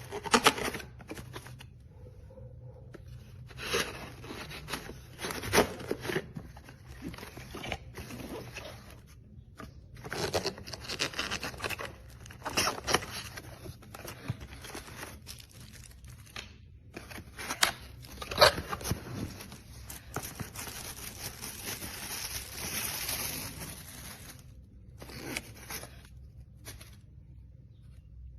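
Irregular rustling, crinkling and scraping handling noise, as of packaging or objects being moved about, broken by sharp clicks and knocks.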